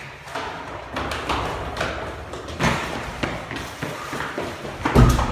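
Footsteps of people running down a staircase: a quick, irregular run of thuds on the steps, with one heavy thump about five seconds in.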